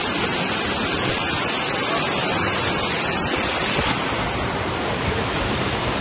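Sekumpul waterfall: a loud, steady rush of falling water. The highest hiss drops away suddenly about four seconds in.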